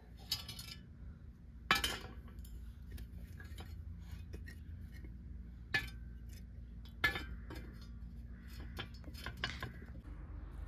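Scattered sharp clinks and knocks of hard objects being handled, a few louder ones spread through, over a faint steady low hum.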